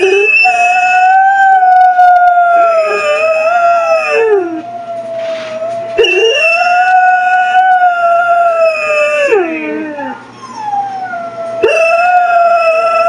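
Black and tan coonhound baying in three long, drawn-out howls, each held steady and then falling in pitch at its end, the last one starting near the end. She is howling along with a recording of her own howls played through computer speakers, and the two voices overlap.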